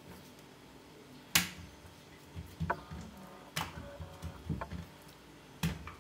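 Hand work with dough in a baking dish: oiled dough rounds being laid in and pressed flat by hand, giving a few soft taps and clicks against the dish, three of them sharper, about two seconds apart.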